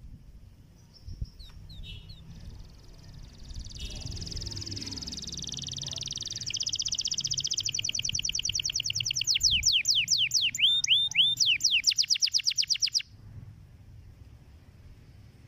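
Domestic canary singing one long song: a few scattered notes, then a fast, steady trill that changes into rapid repeated down-sweeping notes, getting louder, and stops abruptly a couple of seconds before the end.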